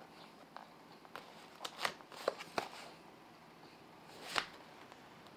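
Cardboard takeout box being opened by hand: scattered short scrapes, clicks and crackles of cardboard and its paper sealing sticker being peeled and pried apart, with a longer tearing scrape about four seconds in.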